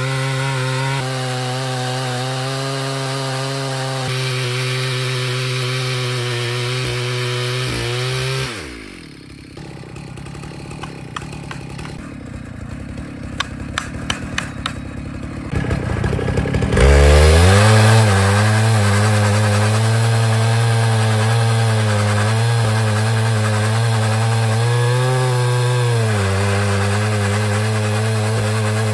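Two-stroke chainsaw in a chainsaw mill cutting lengthwise through an oak stump at full throttle. A third of the way in the engine falls away to a low idle with a few light knocks, then revs sharply back up and keeps cutting.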